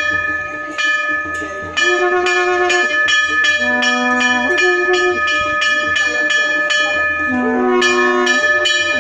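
Bells struck rapidly, about three strokes a second, their ringing held on over a simple repeating melody of a few low notes.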